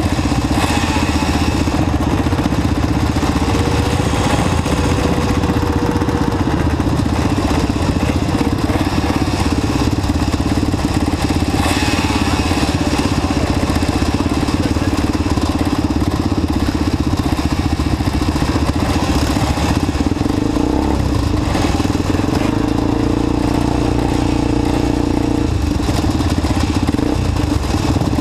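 Engines of several ATC all-terrain vehicles idling together at the start line. One engine rises and falls in pitch a few seconds in, and again later.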